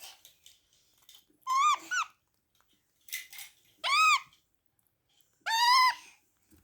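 Parrot calling in short, high, arching screeches, a few spaced a second or two apart, with one harsher rasping call among them.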